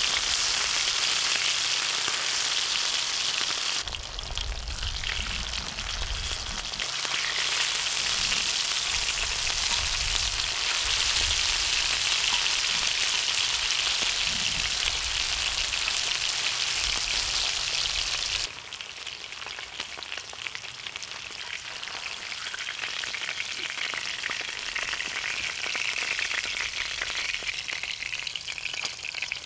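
Lamb ribs sizzling and frying in a hot pan, a dense steady crackle. The sizzle changes abruptly a few times and turns quieter about two-thirds of the way through.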